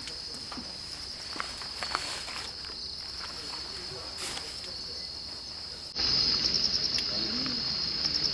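Insects trilling steadily in a high, continuous chorus. About six seconds in it becomes suddenly louder, with the trill broken into quick, even pulses.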